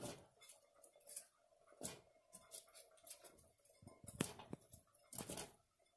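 Cauliflower florets dropped by hand one after another into boiling gravy in a pressure cooker pot: scattered soft plops and light knocks, the loudest about four and five seconds in.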